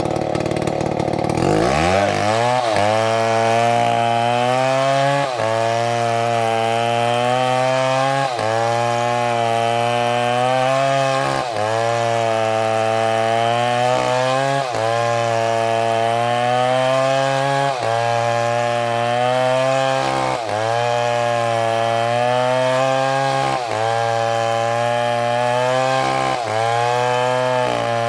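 Two-stroke chainsaw revving up about two seconds in, then running hard. Its engine pitch dips and recovers in a regular cycle about every three seconds.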